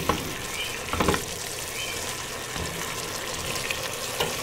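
Diced carrots and celery sizzling in a pot while wine reduces, with a spatula scraping across the bottom just after the start, again about a second in, and once more near the end.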